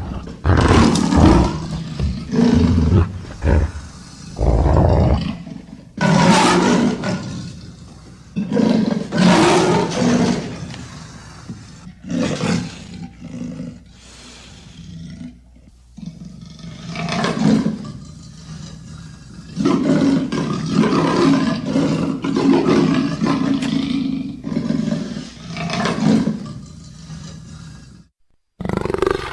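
Made-up animal calls mixed from leopard and wolf recordings: a long series of loud roars and growls of varied length. A quick run of short calls comes first, then longer, spaced-out roars, with a more continuous stretch from about twenty seconds in and a brief break near the end.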